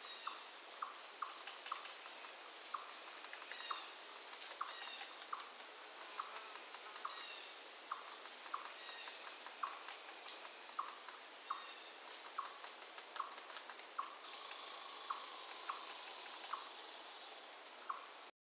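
Steady high-pitched chorus of crickets, with short chirps repeating about twice a second underneath; the sound cuts off suddenly near the end.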